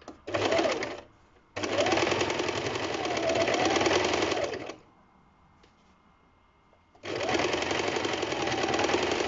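Lervia electric sewing machine stitching a seam in three runs: a brief burst, about three seconds of steady stitching, then another run starting about seven seconds in. The motor's whine rises and falls as the stitching speeds up and slows.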